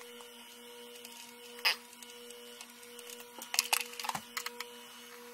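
Steady electrical buzz in the background that sounds like electrocution, with short clicks and scrapes about a second and a half in and again around four seconds as screws are worked out of the plastic case of a Western Digital My Book external hard drive.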